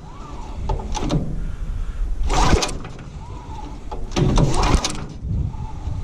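Recoil starter rope being pulled on the wood chipper's small gasoline engine, several pulls in a row, each a short whirring rasp as the engine cranks without catching.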